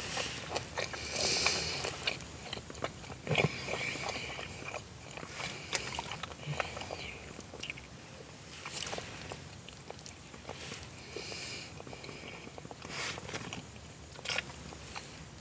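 A person eating close to the microphone: irregular biting and chewing sounds with sharp mouth clicks.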